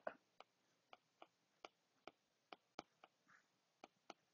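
Faint, irregular light clicks, about two or three a second: a stylus tapping on a tablet screen while handwriting.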